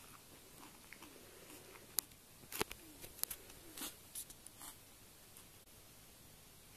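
Faint rustling and scratching, with a handful of sharp clicks between about two and five seconds in.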